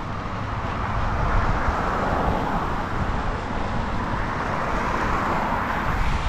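Wind rushing over a helmet-mounted camera's microphone while riding a bicycle, with a hiss of road and tyre noise that swells twice.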